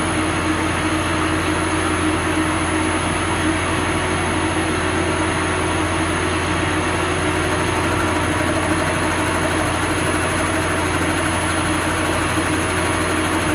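Homemade Arduino-controlled CNC lathe running at about 700 rpm on its variable-speed drive while its tool takes a very light automatic turning pass along a steel bar. It makes a steady mechanical drone with a thin high whine.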